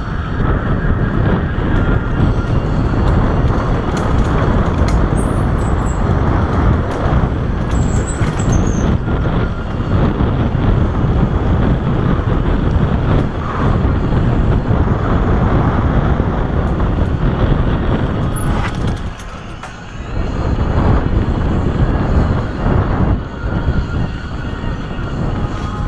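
Wind buffeting the microphone of a camera on a mountain bike and the rumble and rattle of tyres on a dirt singletrack, riding fast downhill; the noise eases briefly about three-quarters of the way through.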